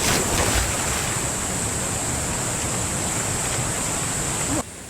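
Loud, steady rush of water with some splashing at the start; it cuts off suddenly near the end.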